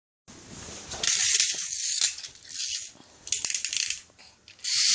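Pull-back toy car's spring motor whirring and rattling in several short bursts, a few separated by brief pauses.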